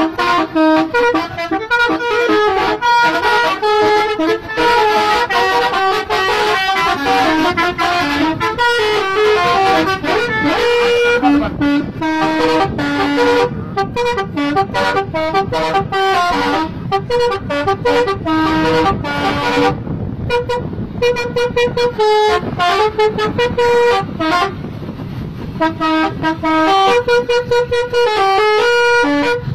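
Multi-tone telolet horns playing quick tunes in rapid strings of short, stepped-pitch toots, with a softer stretch a little past two-thirds of the way through.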